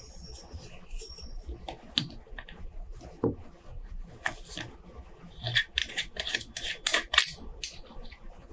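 Small metallic clicks, taps and scrapes as the screw-down steel caseback of a Seiko diver's watch is worked loose with a case opener and then unscrewed by hand. A quick run of sharper clicks comes in the second half.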